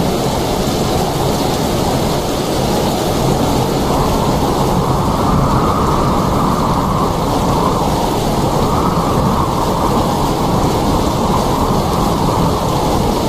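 Steady, heavy rain: a dense, even rush of falling water with most of its weight in the low and middle range and no separate drops or thunderclaps standing out.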